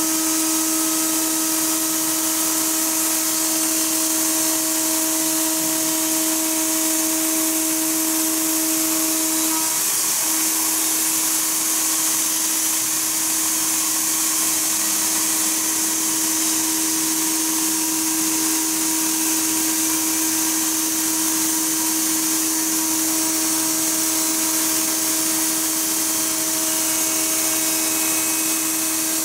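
GDZ-125-6 spindle of a CNC router running and milling a clear sheet, a steady whine under a strong steady hiss from the coolant mist spray at the cutter. About a third of the way in, one of the whine's tones drops away and the pitch shifts slightly.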